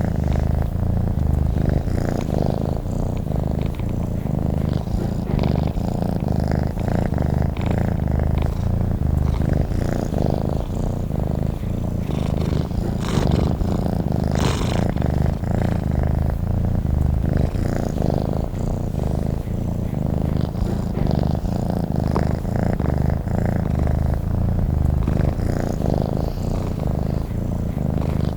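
Domestic cat purring steadily and close up, a continuous low fluttering rumble, with two brief airy noises about halfway through.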